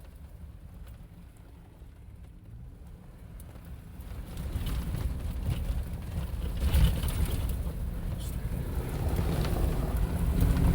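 Off-road vehicle driving on a rough trail: a low engine and drivetrain rumble that grows louder about four seconds in, with scattered knocks.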